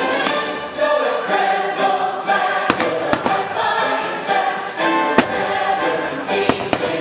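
Fireworks show soundtrack with a choir singing over music, broken by about half a dozen sharp firework bangs, the deepest about five seconds in.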